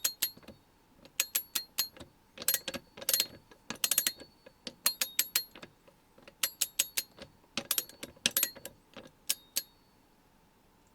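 ASH LVR4250 1/2-inch drive 20-tooth, two-pawl ratchet handle clicking as it is swung back and forth, in quick runs of sharp metallic clicks with short pauses between, stopping near the end.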